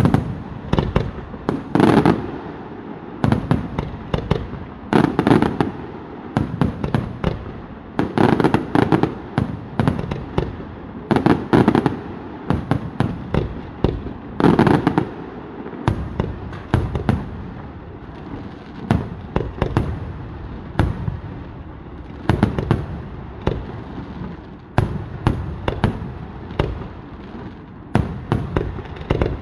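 Aerial fireworks bursting in rapid succession: a dense barrage of bangs and crackling, with heavier volleys about every three seconds through the first half, then a somewhat lighter run of bursts.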